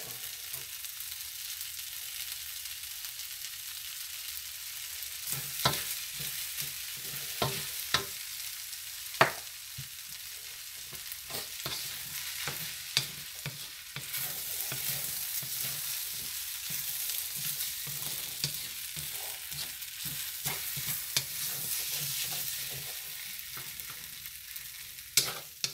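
Chicken fried rice sizzling in a hot wok as a wooden spatula stirs and tosses it. A steady sizzle runs throughout, with short knocks and scrapes of the spatula against the pan from about five seconds in.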